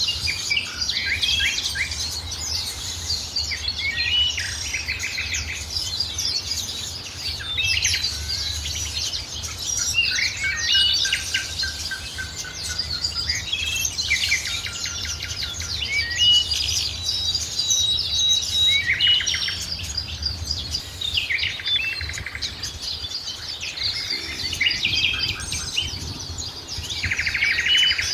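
Several songbirds singing and chirping together in a dense chorus of quick trills, rapid note series and whistles, over a faint low rumble.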